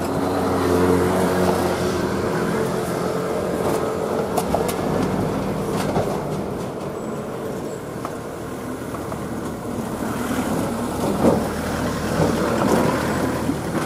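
Kintetsu electric train running along the track and moving away: motor hum and wheel rumble on the rails, the hum tones fading after the first couple of seconds.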